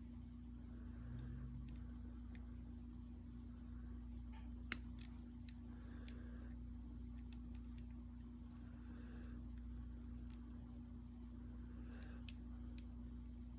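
Sparse sharp metallic clicks and ticks of lock-picking tools working the sliders of an OnGuard slider lock, the loudest a single click a little before the middle, with a few more soon after and near the end.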